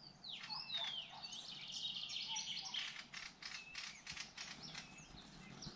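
Small birds singing: a mix of short chirps, whistled notes that slide up and down, and a trill, busiest in the first few seconds and thinning out toward the end.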